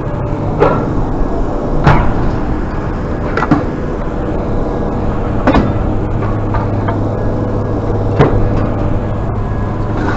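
A vehicle engine running steadily, with five sharp knocks or clanks spaced one to three seconds apart.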